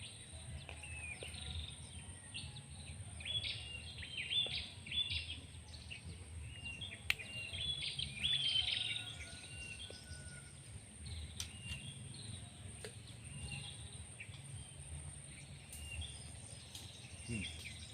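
Outdoor ambience of birds chirping in quick clusters of short calls, busiest in the first half, over a steady thin high-pitched tone and a low rumble.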